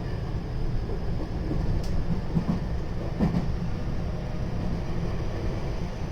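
JR West 223 series 0 electric multiple unit heard from on board while running: a steady low rumble of wheels on rail, with a few brief knocks and squeaks about two and three seconds in.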